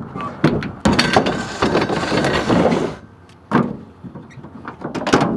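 Metal loading ramp being slid into a pickup truck's ribbed plastic bed liner: a scraping slide for the first few seconds, with several sharp clanks and knocks, and a couple more knocks near the end.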